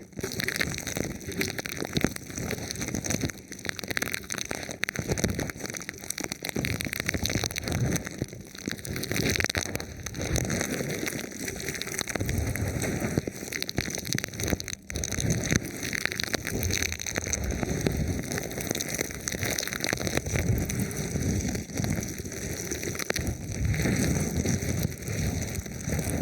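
Thin plastic film wrapped over a microphone being rubbed and touched, a continuous dense crinkling and crackling.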